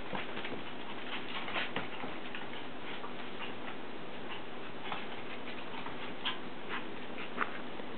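Havana Silk Dog puppies' claws clicking irregularly on a tiled floor as they scamper and play, over a steady hiss.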